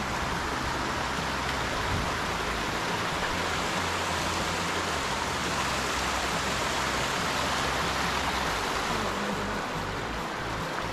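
Steady rush of running water from a small mountain stream.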